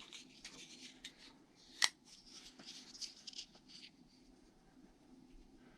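Kershaw Shuffle 2 folding knife being handled: soft rubbing and small ticks, with one sharp click about two seconds in.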